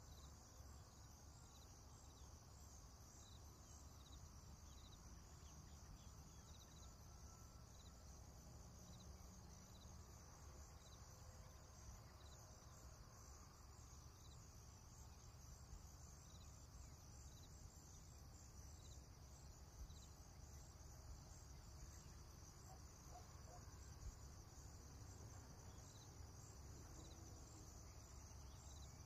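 Near silence: faint crickets trilling steadily, with small regular chirps, over a low background rumble.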